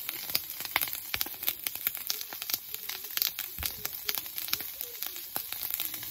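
Fat from a thick block of meat sizzling and crackling on a grill plate over a Trangia alcohol burner, flaring into flames. The crackling is dense and irregular over a steady sizzle.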